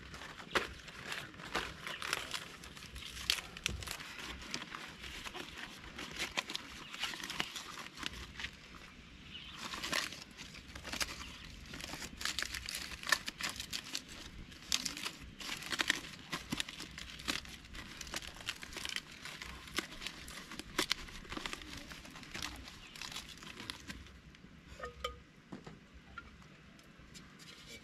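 Fresh green leaves rustling and crinkling as they are folded and pressed into a clay cooking pot by hand, in a dense run of small irregular crackles and taps.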